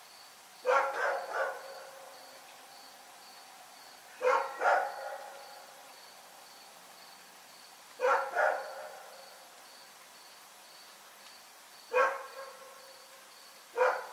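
A dog barking repeatedly in short bouts of one to three barks, about every four seconds.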